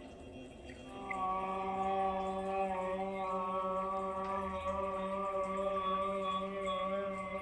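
A person's voice holding one long, steady note, chant-like, starting about a second in.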